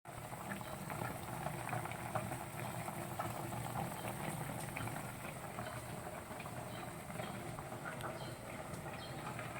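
Chicken boiling in a pot of broth, bubbling steadily with a dense patter of small pops.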